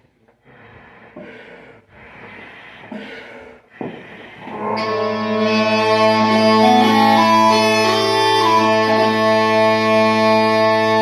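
Mouth-blown Scottish smallpipes being struck up. A few breaths are blown into the bag, then about five seconds in the drones come in as a steady low hum with the chanter sounding over them, its note changing a few times.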